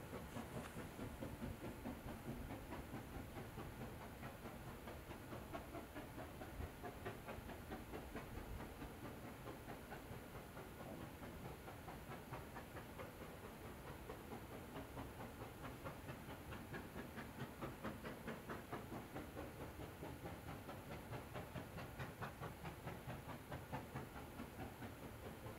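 Steam locomotive working an empty train, heard from across the pit: its exhaust beats come in a quick, even rhythm over a steady hiss.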